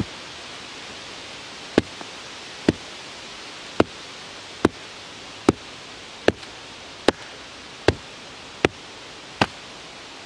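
A birch log wedged on the blade of a Cold Steel shovel is struck down again and again to split it: about eleven sharp wooden knocks, roughly one a second and coming slightly faster towards the end, over a steady hiss.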